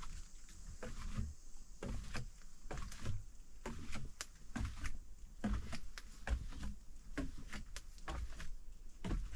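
A run of irregular light clicks and soft low thumps, several a second, in a small reverberant room.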